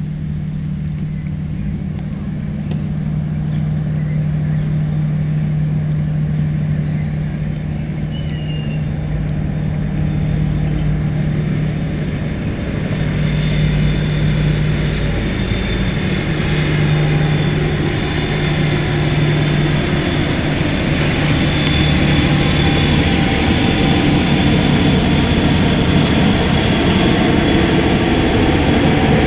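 Voskhod-type hydrofoil running at speed on its foils: a steady low diesel drone, joined about halfway through by a thickening rush of water and a thin high whine, growing slowly louder as it comes closer.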